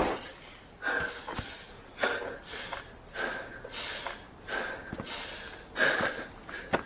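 A young man breathing hard through the nose and mouth in sharp, heavy breaths, about one a second: he is out of breath from fighting.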